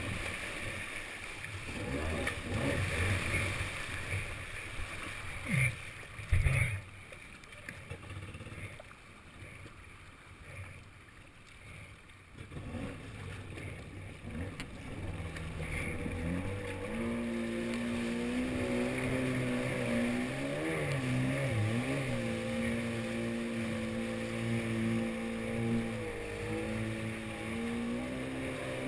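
Yamaha SuperJet stand-up jet ski on the move: water rushing and splashing against the hull, with two sharp thuds about six seconds in. It goes quieter for several seconds, then about halfway through the two-stroke engine's steady running note comes up and stays, wavering briefly a few seconds later.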